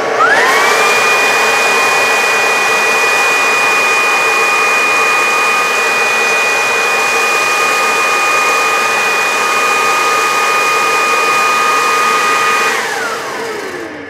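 Cecotec Conga Rockstar cordless stick vacuum's motor switched up to turbo mode. Its whine rises sharply in pitch within the first half second and then holds a steady high whine over the rush of air. About 13 s in, the whine falls in pitch and fades as the motor winds down.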